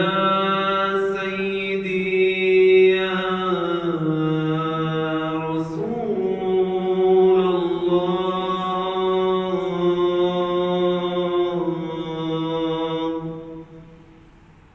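A solo man's voice chanting in the mosque's prayer hall, in long held notes that slide slowly between pitches, stopping about 13 seconds in.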